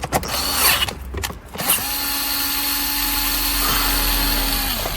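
Cordless drill-driver unfastening screws: a short burst early on, then the motor runs at one steady speed for about three seconds before stopping.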